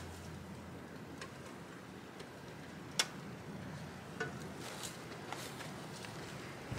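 Scattered light clicks and taps, the sharpest about three seconds in, over a faint low hum that fades out a little past the middle.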